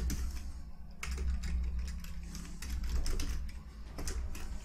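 Computer keyboard typing: a run of quick key clicks over a steady low hum.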